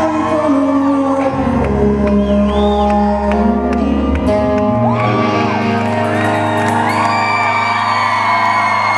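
Live rock band playing held chords on electric guitar, bass and drums in a large hall, the bass note changing twice. From about five seconds in, audience members whoop and scream over the music.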